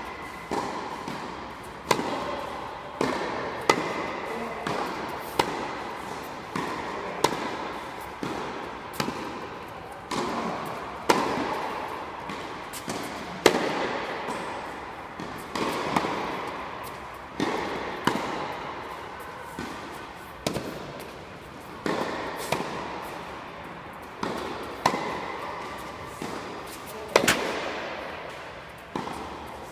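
Tennis balls struck by rackets and bouncing on an indoor hard court during a rally: sharp pops about every second, each ringing out in the hall's echo.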